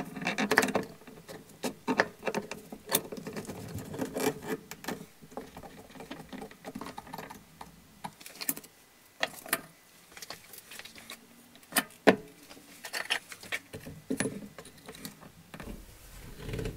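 Metal clamps being set and tightened on a glued-up wooden cutting board: irregular clicks, knocks and rattles of clamp bars, screw handles and wood against the workbench.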